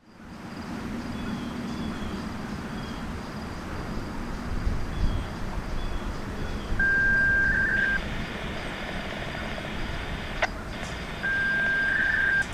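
Siren activation tones heard over a radio receiver: a steady beep about seven seconds in, a stretch of radio hiss that cuts off with a click, then a second steady beep near the end, over outdoor background noise.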